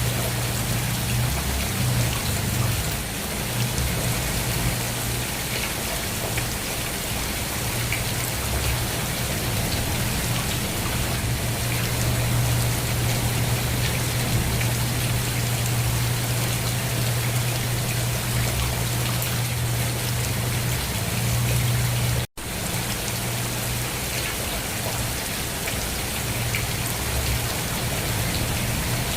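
Steady rain falling, with a constant low hum underneath. The sound cuts out for an instant once, about three quarters of the way through.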